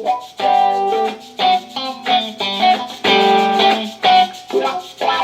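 Guitar-led song played from CD through a vintage Marantz 1060 integrated amplifier and a pair of Definitive Technology BP 2002 loudspeakers, heard in the room, with rhythmic strummed chords. The loudness control is off and the tone controls are flat.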